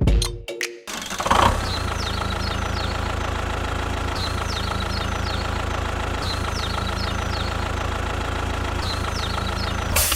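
An engine idling steadily, coming in about a second in and cutting off suddenly at the end, with short high bird chirps in small groups over it.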